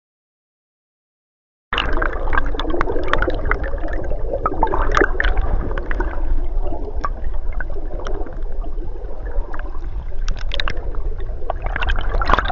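Silence for nearly two seconds, then water gurgling and bubbling around a submerged camera, with many small pops and clicks, as a landing net is worked through the churned water.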